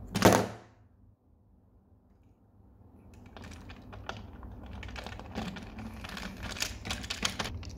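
A sharp clack as a smartphone drops flat onto a hard table, then a run of small irregular clicks and rubbing as a hand handles a plastic toy train engine on the table top, building from about two and a half seconds in.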